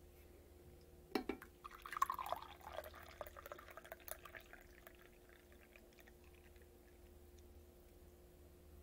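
Coffee poured from a stainless steel pot into a ceramic mug: a light clink about a second in, then a few seconds of pouring that trails off into drips.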